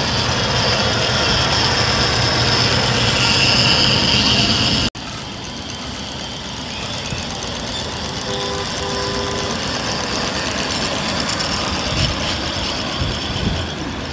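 Ridable miniature steam locomotive running: a steady hiss over a low, even hum. About five seconds in the sound cuts off abruptly and carries on quieter as the train passes.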